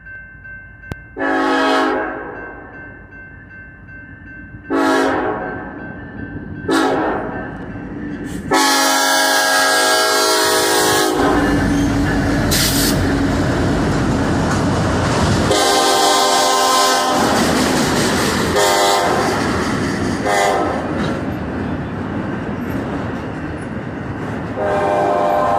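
Air horn of a Union Pacific EMD SD70AH locomotive sounding a crossing sequence of four blasts, the last one long, over a ringing grade-crossing bell. The locomotive then passes close with its diesel engine running, and the empty autorack cars roll by with wheel clatter while the horn sounds a few more blasts.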